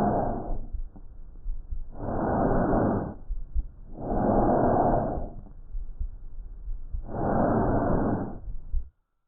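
Breath sounds as heard on lung auscultation: airy whooshing breaths with no pitch, four swells of about a second each with short quiet pauses between them.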